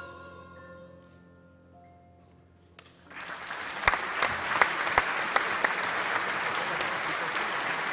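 A woman's final held sung note and its accompanying chord fade out, then about three seconds in a theatre audience breaks into applause, with a few sharp, loud claps standing out near the microphone.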